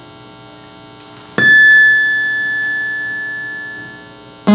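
Electronic noise music: a faint, steady drone, then about a second and a half in a loud, high electronic tone starts abruptly and slowly fades away over about three seconds.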